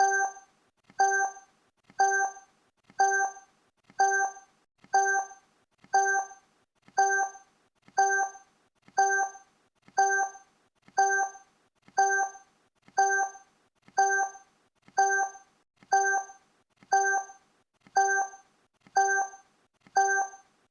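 Countdown timer sound effect: a short pitched electronic blip sounding exactly once a second, each one fading quickly, marking the final seconds of the count.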